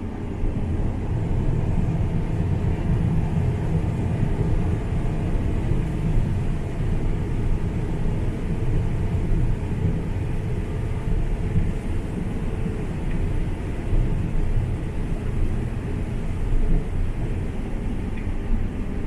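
Combine harvester running steadily while harvesting soybeans: an even, continuous low rumble.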